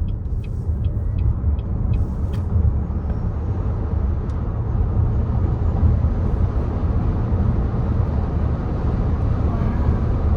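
Steady low road and tyre rumble inside the cabin of a moving BYD Sealion 6, with a few faint, evenly spaced ticks in the first two seconds.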